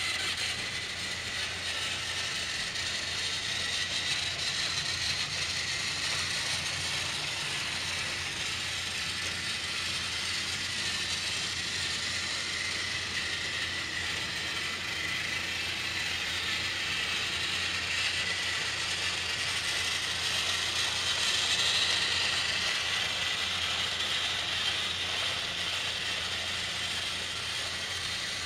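Trackmaster motorized toy train's small battery motor and plastic gearbox whirring and grinding steadily as it pulls its cars around the track, growing a little louder about two-thirds of the way through.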